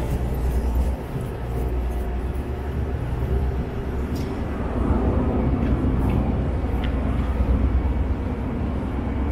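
Steady low rumble of city street traffic noise, with a little more mid-range noise from about five seconds in.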